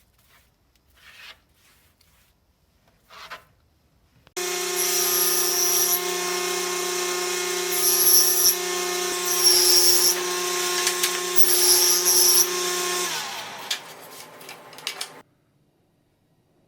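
An electric sander starts abruptly about four seconds in and runs with a steady motor hum, with intermittent higher hissing as it sands the dried spackle on the cabinet doors. Near the end it is switched off and its pitch falls as it winds down. Light handling noises come before it.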